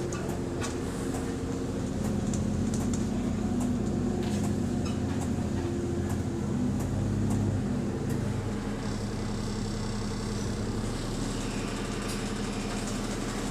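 Bus engine running, heard from inside the cabin, with scattered clicks and rattles over it. The engine note shifts a little partway through.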